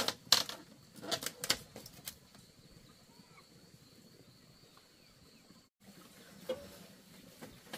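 Woven bamboo door panel being pushed aside, with a few sharp clacks and rattles of bamboo knocking on bamboo in the first two seconds. Then near quiet with a faint steady high tone.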